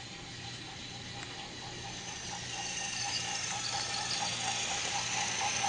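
Motorised toy train running, a steady hum and hiss with a faint pulse about four times a second, growing steadily louder.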